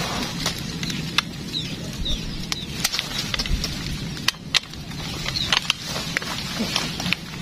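Scattered sharp clicks and knocks of an airgun fishing rifle and its line reel being handled. A few short bird chirps sound over a steady outdoor hiss.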